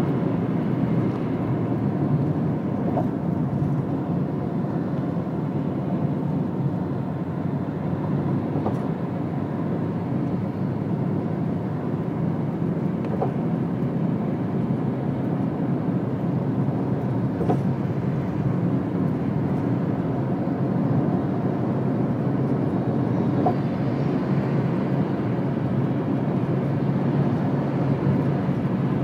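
Steady road noise of a car travelling fast on an expressway, heard from inside the cabin: an even rumble of tyres and engine, with a few faint ticks.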